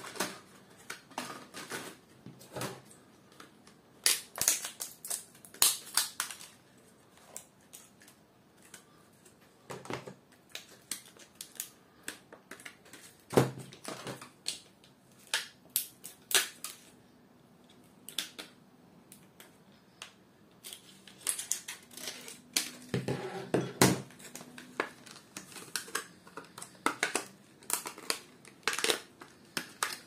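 A stiff clear plastic blister pack holding a laptop memory stick being cut open with scissors and pried apart. It gives irregular sharp clicks, snaps and crackles of the plastic.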